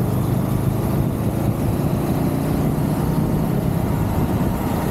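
Honda CBR500R's parallel-twin engine running steadily as the motorcycle rides along at road speed, with a constant rush of wind noise over it.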